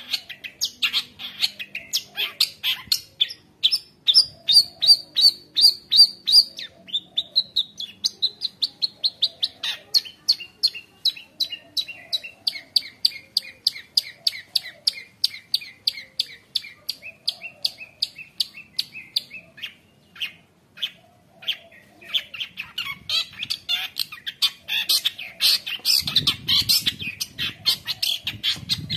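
Long-tailed shrike (cendet) singing a fast, varied song of sharp repeated notes, several a second, packed with mimicked phrases, some runs sliding down in pitch. A harsher, denser chatter fills the last several seconds.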